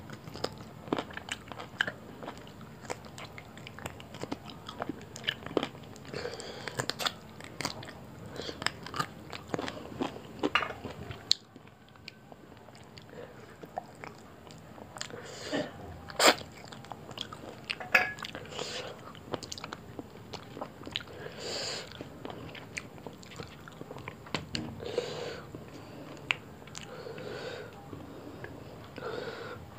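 Close-up chewing and biting of roti rolled with egg and chicken curry: a steady run of short mouth clicks and smacks.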